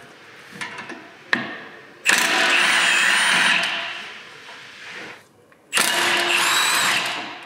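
Milwaukee Fuel cordless impact wrench hammering in two short runs, about two seconds in and again near the end, undoing the two 17 mm brake caliper mounting bolts. A single sharp knock comes just before the first run.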